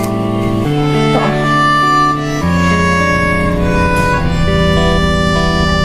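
Instrumental background music: held notes and chords that change every second or two.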